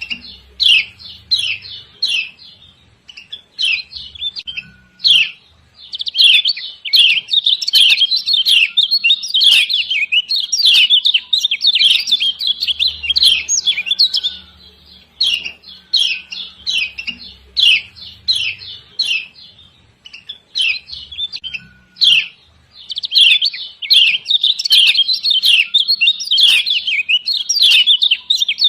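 Kecial kuning (Lombok yellow white-eye) giving rapid, high 'ciak ciak' chirps in runs of a few seconds with short pauses between. This is the female call that keepers play as a lure to set other kecial singing.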